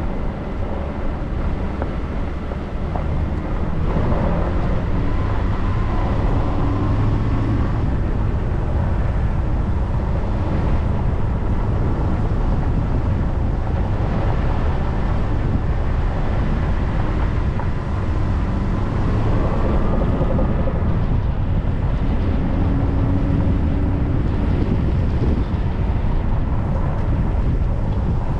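Car driving on an unsealed dirt road: a steady low rumble of tyres and engine, with the engine pitch shifting a couple of times.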